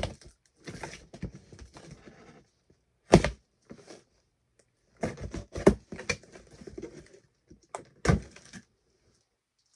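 Cardboard shipping box being cut and pried open at its taped top: a handful of sharp cardboard knocks and cracks, about five in all, with scraping and rustling of the tape and flaps between them.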